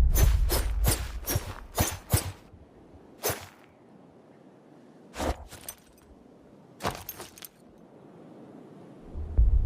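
Machete sound effects: a quick run of about six sharp metallic strokes over a low rumble in the first couple of seconds, then single strokes and short clusters spaced out with quiet between.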